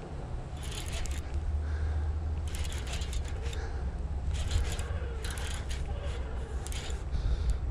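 Baitcasting reel being cranked in short spurts while fighting a hooked bass: bursts of quick ticking and scraping from the reel, over a steady low rumble.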